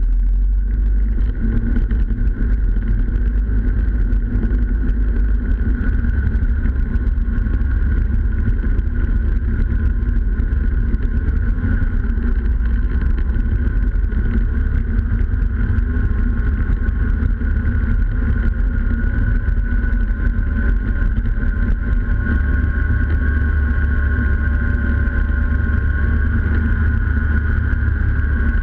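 Snowmobile engine running steadily at speed, heard close up from the machine's own hood, with a deep rumble from the drive. Its note climbs slowly over the last third as the machine picks up speed.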